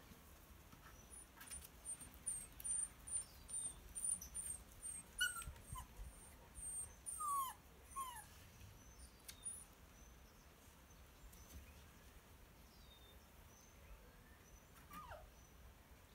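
Mixed-breed puppy whimpering: several short high whines that fall in pitch, bunched around the middle, and one more near the end. Before the whines comes a run of faint high chirps.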